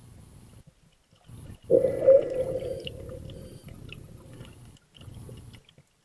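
Muffled underwater noise picked up by a camera below the surface, broken by a sudden loud sound about two seconds in that holds a low hum and fades over a second or two.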